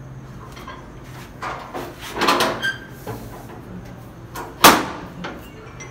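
A door banging: scraping and rattling about two seconds in, then one sharp, loud bang near the end.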